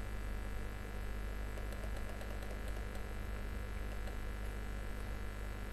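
Steady low electrical hum with a faint hiss, unchanging throughout: the background tone of the recording in a pause between spoken sentences.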